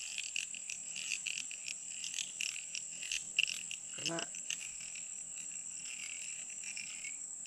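Insects calling in the undergrowth: a steady high-pitched drone with rapid, uneven chirping beneath it. A brief vocal sound comes about four seconds in.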